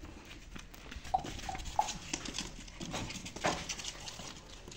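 A dog whining: three short whines in quick succession about a second in, among knocks and rustling.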